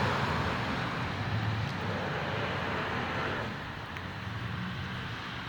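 Vehicle noise with a low rumble; the rushing part eases off about three and a half seconds in.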